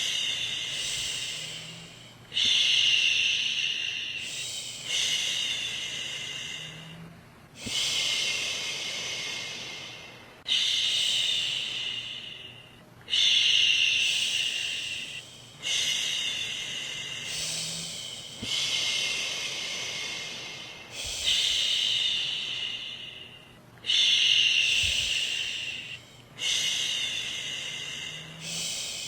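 A woman's voice making a long "shhh" shushing sound for a baby, over and over, about once every two and a half seconds. Each shush starts strong and fades away.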